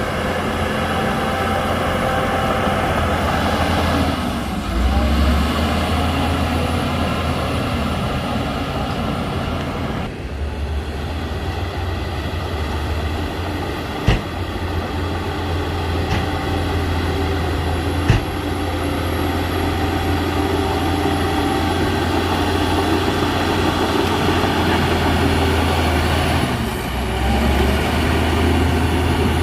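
Heavy diesel earthmoving machine engine running steadily under load, its note shifting briefly about four seconds in and again near the end. Two sharp knocks stand out in the middle.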